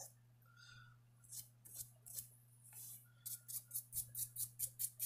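Sandpaper rubbed in short back-and-forth strokes over the tops of a slipjoint pocketknife's metal bolsters: scattered scratches at first, then a quick steady run of about four strokes a second. A faint steady low hum lies underneath.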